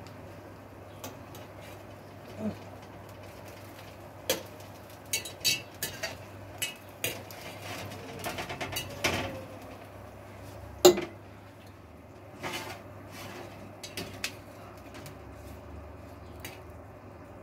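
A metal fork clinking and scraping against a metal baking pan as roasted eggplant slices are turned over, a string of irregular sharp taps, the loudest about eleven seconds in.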